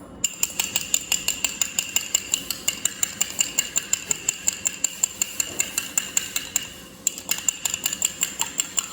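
An egg being lightly beaten in a bowl: a utensil clinks quickly and evenly against the bowl's side, about five or six strokes a second, with a short pause near the end before it picks up again.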